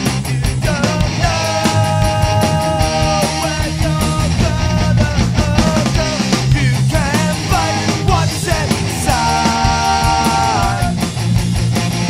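Pop-punk band playing a passage with no words: distorted electric guitars, bass and drums, with a held melody line over them that bends between notes.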